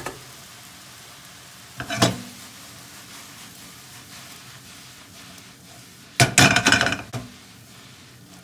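Frying pan of spaghetti being tossed and shaken over a gas burner: a knock about two seconds in, then a loud clatter of the pan lasting about a second near the end, over a low steady hiss.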